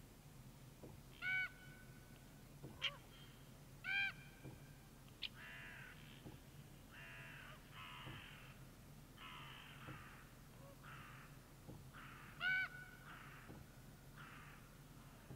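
Common ravens calling: three loud, ringing pitched calls (about a second in, at four seconds and near the end), a couple of sharp knocks, and a run of harsh, raspy croaks in between.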